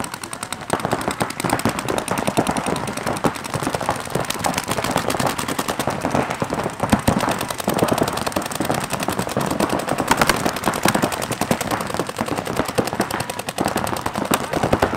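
Several paintball markers firing in rapid, continuous streams, the shots popping many times a second and overlapping without a break.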